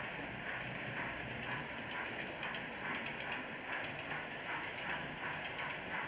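Model steam locomotive and coaches running along the track: a steady running whirr with an even rhythmic clicking of the wheels over the rail joints, a few clicks a second.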